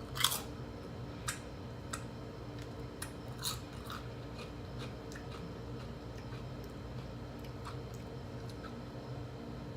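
A person eating: chewing with scattered sharp mouth clicks and smacks, the loudest just after the start, over a steady low hum.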